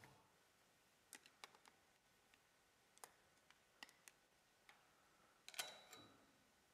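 Faint, scattered clicks and taps of small metal parts being handled at the top of a Bing carburetor, with a sharper metallic clink that rings briefly about five and a half seconds in.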